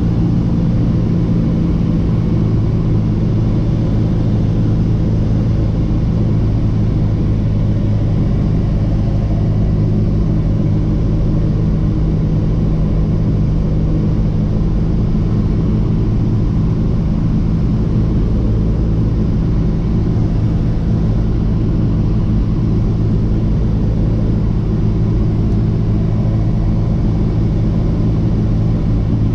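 Cessna 172's piston engine and propeller droning steadily, heard from inside the cockpit on approach to land.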